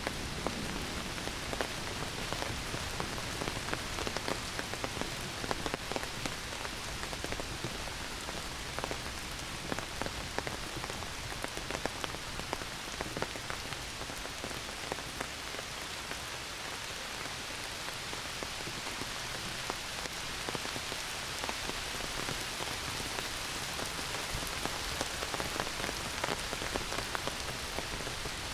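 Heavy rain pouring steadily, with many individual drops ticking close by.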